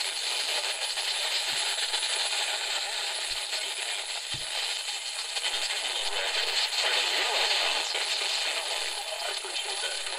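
Static hiss from the small speaker of a Murania one-transistor AM radio kit as its dial is tuned across the band between stations.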